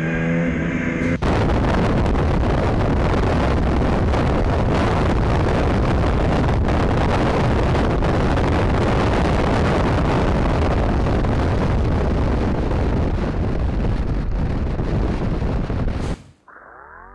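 A motorcycle engine revs up for about the first second, then cuts abruptly to heavy wind noise on a motorcycle-mounted camera's microphone at highway speed. The wind noise is a loud, steady rush that buries the engine. Near the end it cuts off into a short swooshing transition effect.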